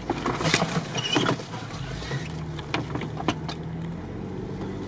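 Cabin sound of an off-road SUV crawling over a rough forest dirt track: a low, steady engine hum with a series of knocks and rattles as the body and suspension take the bumps, most of them in the first second and a half.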